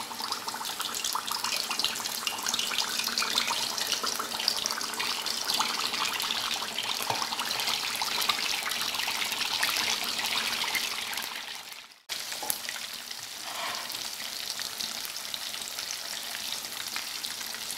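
Fish steaks deep-frying in hot oil: a steady, dense sizzle of bubbling and crackling. About two-thirds of the way through it fades, drops out for a moment, then comes back a little quieter.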